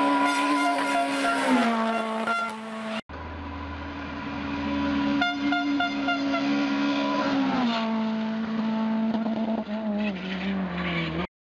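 Škoda Favorit rally car's four-cylinder engine running flat out at high, steady revs, its note dropping in pitch about one and a half seconds in. After a cut at about three seconds, a second take of the car at full throttle, the note again dropping at about eight seconds and wavering before the sound cuts off just before the end.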